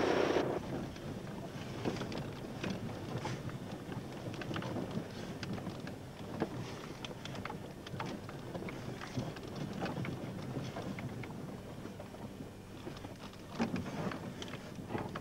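Car moving slowly over a rutted, icy track, heard from inside the cabin: a steady low rumble with many small clicks and knocks from the tyres and body.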